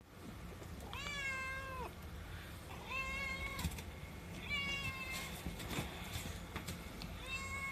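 Young Himalayan cat meowing four times, each call drawn out for under a second and held at an even pitch, begging to be fed.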